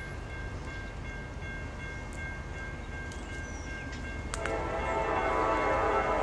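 A railroad grade-crossing warning bell rings steadily. About four seconds in, a diesel locomotive's multi-chime air horn starts sounding from the approaching train and gets louder.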